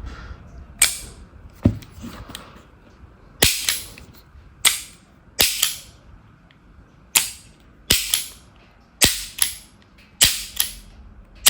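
Marushin S&W M10 gas airsoft revolver being worked repeatedly to test a repaired, handmade action part: sharp metallic snaps of the action cycling and the hammer falling as the cylinder turns, about eight times, several as quick double clicks.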